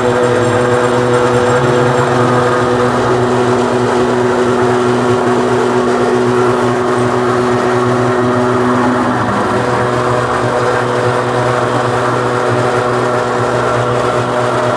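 Electric noodle machine running steadily, its motor and steel rollers pressing crumbly noodle dough into a sheet, with a steady hum. The hum shifts slightly in pitch about nine seconds in.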